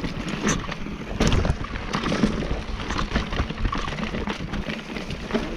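Mountain bike riding over a rough trail: a steady rush of tyre and air noise with irregular knocks and clatter from the bike throughout.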